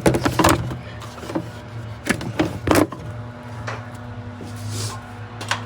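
A few sharp plastic clicks and knocks as the stock air intake parts are handled and pulled loose, over a steady low hum.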